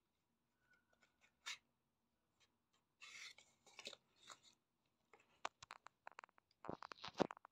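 Faint scratching and rubbing of a cardboard matchbox against a wooden surface as a cat works its drawer open with nose and paws to get a treat out. Then a quick run of light clicks and taps, loudest near the end.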